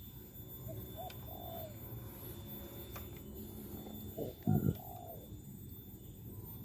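A dove cooing: short rising-and-falling coos in a couple of small groups. A brief low thump about four and a half seconds in is the loudest sound.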